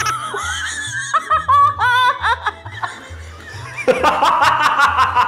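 A woman laughing hard, breaking into quick repeated breathy laughs near the end, over background music with a steady beat.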